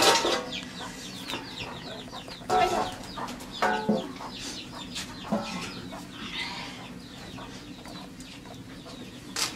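Chickens clucking, with a few short calls about two and a half and four seconds in, over clinks and scrapes of metal pans and a wooden paddle.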